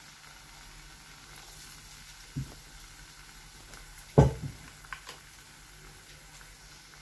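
Gram-flour-battered karpuravalli leaf bajjis deep-frying in hot oil with a steady sizzle. A soft knock comes about two and a half seconds in, and a louder dull knock about four seconds in.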